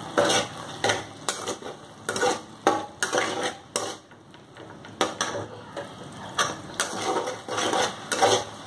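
Metal spatula scraping and knocking against a metal kadai as tomatoes and masala are stirred and fried, in irregular strokes about once or twice a second.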